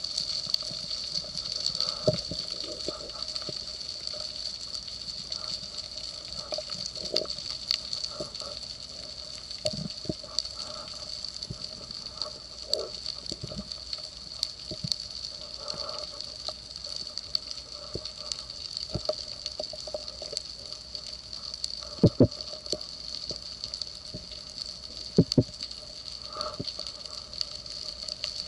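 Underwater ambience picked up by a camera in its housing during a spearfishing dive: a steady crackle and hiss with a constant high whine, broken by scattered clicks and a few sharper knocks about three-quarters of the way through.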